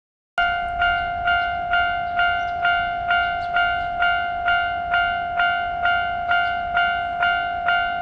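Railroad crossing warning bell ringing in an even rhythm of about two strikes a second, starting about half a second in.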